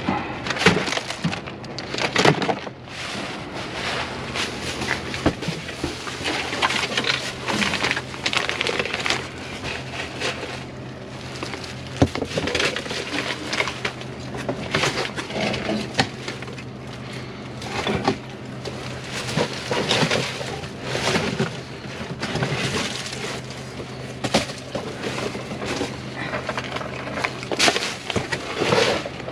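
Rummaging through a dumpster: crinkling plastic bags and packaging with frequent knocks and clatters of items being moved, over a steady low hum.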